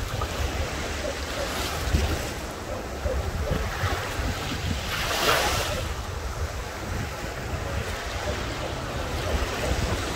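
Small sea waves breaking and washing up the shore at the water's edge, with a louder rush of surf about five seconds in. Wind buffets the microphone throughout.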